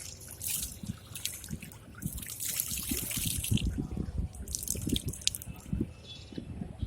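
Water dripping and splashing in uneven bursts, with scattered low knocks, as water is stirred and worked by hand while fishing.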